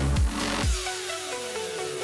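Electronic dance music: a deep, pitch-dropping kick drum beat about twice a second that stops a little past half a second in, giving way to falling synth glides and held tones.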